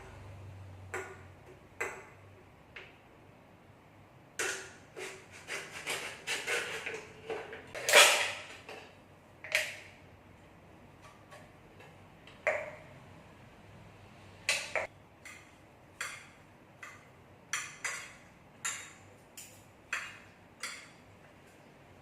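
Kitchen clatter: a long irregular run of light knocks and clinks of utensils against dishes or cookware, thickest and loudest a third of the way in, then scattered single clinks.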